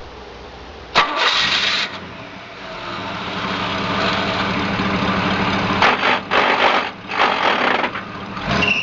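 A vehicle engine starting: a click and a short burst of cranking about a second in, then the engine catches and runs steadily, growing louder. A few short noisy bursts come near the end.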